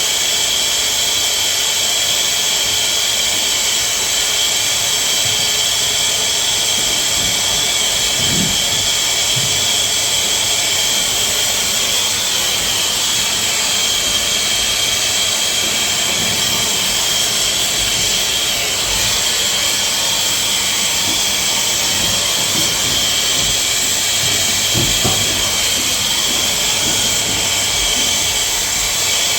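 Plumber's gas torch burning with a steady hiss, heating a 1-inch copper water pipe joint for soldering.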